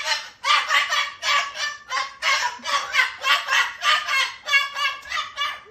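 Parrot calling in a fast run of short, harsh, repeated squawks, several a second, with no gap.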